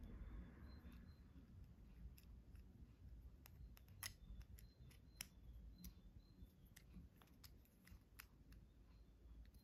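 Faint, scattered clicks of small plastic parts as a Kinder Surprise toy car's grey chassis is pressed and snapped into its purple plastic body, with the sharpest clicks about four seconds in and again about a second later.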